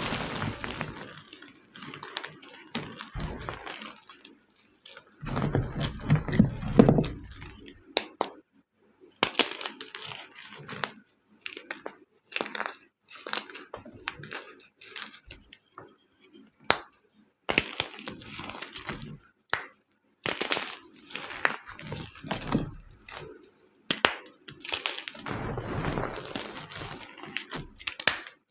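Homemade gym chalk being crushed and crumbled, in irregular bursts of crunching with sharp snaps and crackles and short pauses between handfuls; one heavier, deeper crunch comes about six seconds in.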